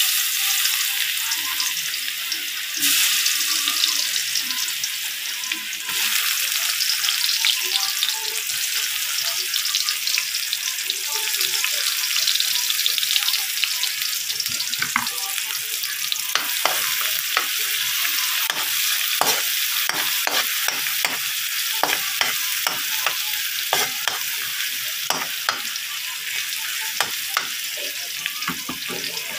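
Minced garlic and sliced red onion sizzling in hot oil in a metal wok, a steady dense hiss that starts abruptly as the garlic goes in and grows louder a few seconds later. Through the second half, frequent short sharp knocks sound over the sizzle.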